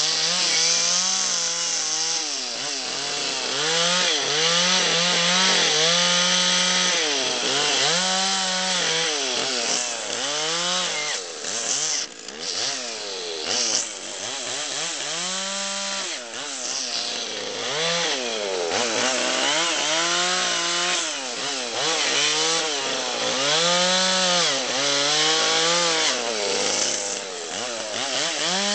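Two-stroke gas chainsaw cutting into a log, its engine rising and falling in pitch every second or two as it revs up and bogs down under the load of the cut.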